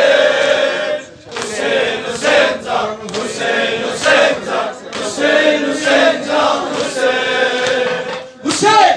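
Men chanting a Shia mourning lament for Hussein (noha), the melody held in long sung lines, with hands striking chests in a steady beat roughly once a second.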